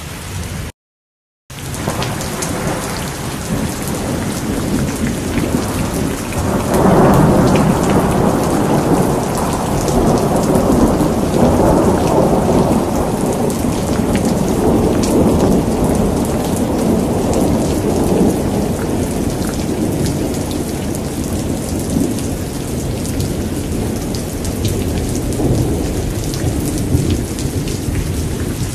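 Steady heavy rain with a long rolling rumble of thunder that swells about six or seven seconds in and slowly dies away over the next twenty seconds. The sound cuts out to silence for under a second about a second in.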